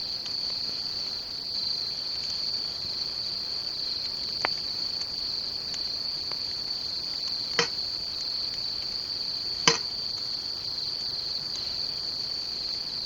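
Crickets chirping in a steady high trill, with three short sharp pops about four and a half, seven and a half and nine and a half seconds in, the last the loudest.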